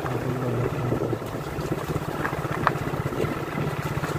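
Motorcycle engine running at a steady low speed while riding a rough dirt track, with a couple of brief knocks near the middle.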